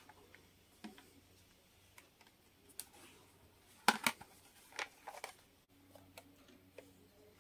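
Hard plastic clamshell carrying case of an analog multimeter being closed and handled: scattered light clicks and taps, the loudest a pair of clicks about four seconds in, with a few more just after.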